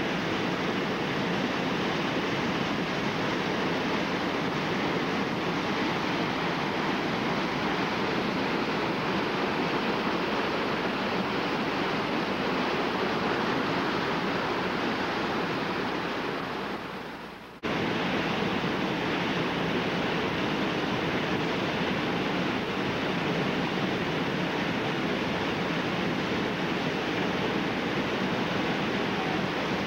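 Loud, steady rush of whitewater rapids and a creek waterfall drop. It fades down about sixteen seconds in and cuts back in abruptly a moment later.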